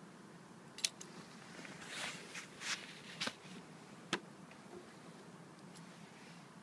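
Faint clicks and rustles over a low hiss: a sharp click about a second in, a few short rustles, and another sharp click about four seconds in. The motorcycle's engine is not running, with the ignition on before a cold start.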